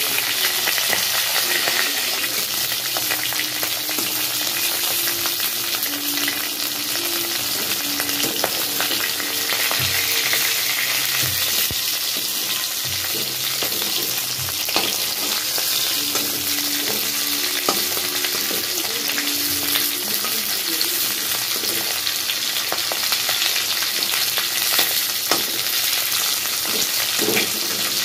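Fish pieces sizzling steadily as they shallow-fry in hot oil in a kadai. A metal spatula turning them now and then clicks and scrapes against the pan.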